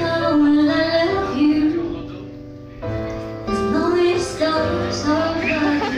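A woman singing into a microphone over a pop backing track played through PA speakers. The backing drops away briefly about two seconds in, then comes back.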